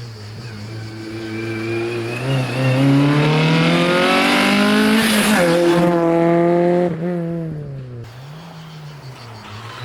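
Race car engine accelerating hard, its note climbing for several seconds and loudest about five seconds in. It then drops sharply, runs on briefly and eases off, quieter near the end.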